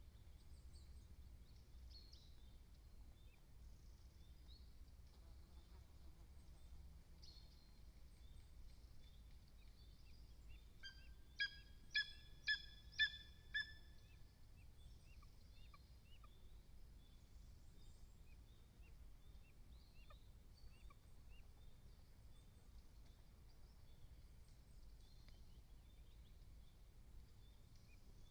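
Lesser spotted eagle calling: a quick series of five loud, high calls, about two a second, some eleven seconds in, over faint songbird chirping and a low steady rumble.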